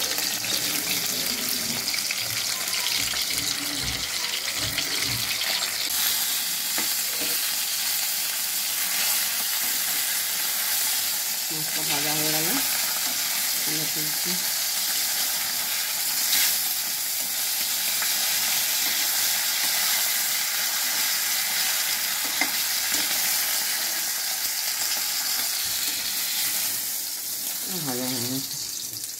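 Whole pomfret shallow-frying in hot oil in a kadai over a high gas flame: a steady, even sizzle.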